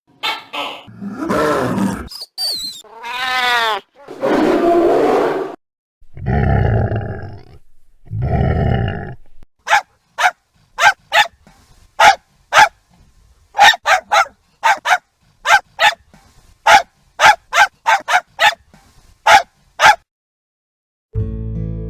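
Dachshund sounds: growling and whining with some rising and falling pitch, then two long low growls, followed by a run of about twenty short sharp barks.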